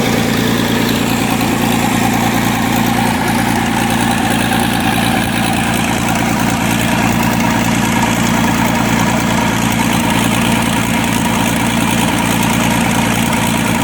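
Rebuilt Mitsubishi diesel engine from a Cat 320C excavator running steadily at idle on a test bench after repair.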